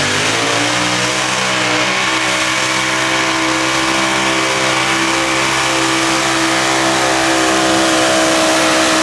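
Mini modified pulling tractor's racing engine pulling the sled at full throttle. It climbs in revs for about the first half-second, then holds high revs steadily and loudly.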